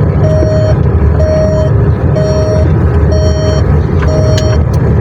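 Truck engine running with a loud, steady rumble heard from inside the cab while driving. Over it, an electronic beeper sounds about once a second, each beep about half a second long.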